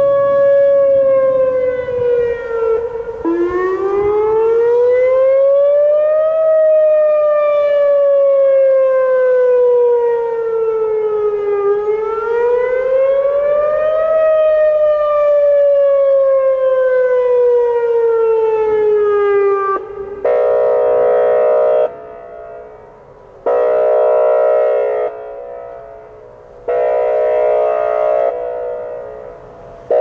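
Whelen WPS-2810 electronic outdoor warning siren on its test. Its steady 560 Hz alert tone slides down and ends, and a wail follows that rises quickly and falls slowly, twice. About two-thirds through it switches to a horn-like tone sounded in repeated blasts about every three seconds.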